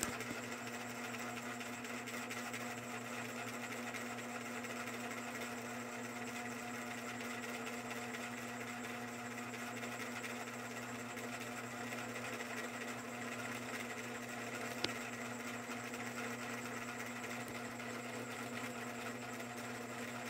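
A steady mechanical hum with a constant low drone, and a faint click about three-quarters of the way through.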